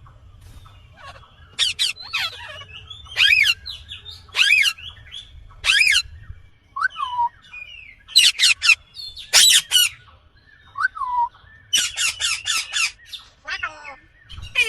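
Green Indian ringneck parrot (rose-ringed parakeet) screeching: loud, harsh squawks in quick runs of two to five, with a few softer falling whistles between the runs.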